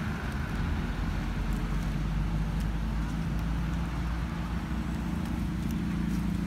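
A steady low mechanical hum and rumble, unchanging throughout.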